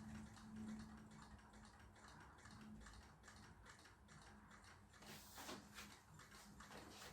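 Faint, rapid, regular ticking with a faint steady hum beneath it, and a brief louder scrape about five seconds in.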